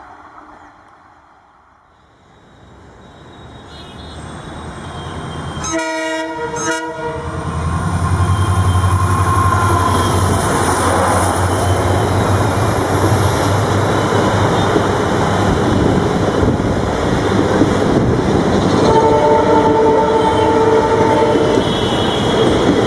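Indian Railways WDG-4 (EMD GT46MAC) diesel locomotive approaching with an express train: it grows louder from a quiet start, gives two short horn blasts about six seconds in, then passes close with a heavy low engine rumble and rolling wheel noise, a thin rising whine high above it.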